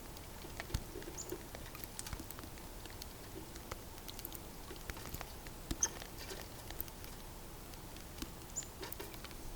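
Red squirrel eating seed at a bird feeder: faint, irregular small crunching clicks, with a few short high bird chirps now and then.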